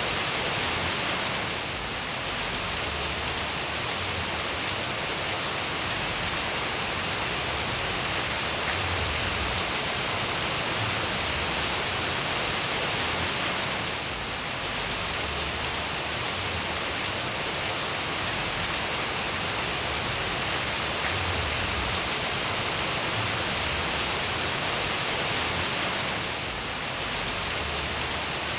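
Steady rain falling, a dense even hiss, dipping briefly in level about every twelve seconds.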